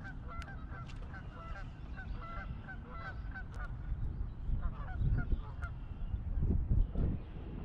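Geese honking in a rapid, repeated series that thins out after about four seconds, over the low rumble of wind on the microphone, which gusts louder near the end. A few sharp ticks are scattered through it.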